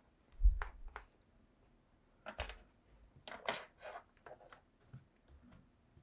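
Handling noises from a laptop being set down and its lid swung open: a dull thump about half a second in, a second one about two and a half seconds in, and a string of light clicks and taps.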